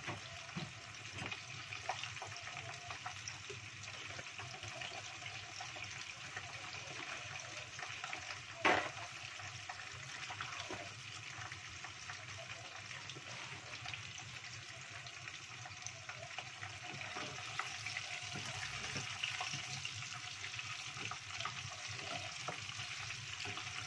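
Food deep-frying in hot oil in a small pot: a steady sizzle and crackle. There is one sharp knock about nine seconds in, and a wooden spatula stirs the pot near the end.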